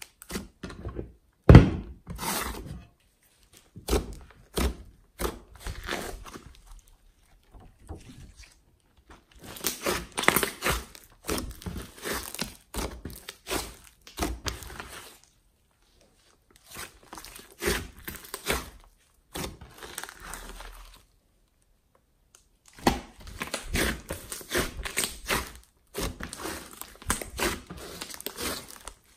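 Hands squeezing, stretching and folding a large mass of glossy slime in a glass dish: bursts of crackling and clicking, with one loud thump about a second and a half in and short pauses between handfuls.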